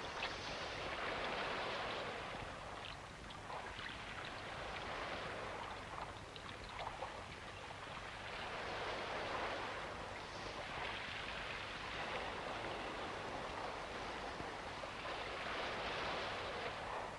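Sea waves washing, swelling and falling back about four times, with a few light clicks.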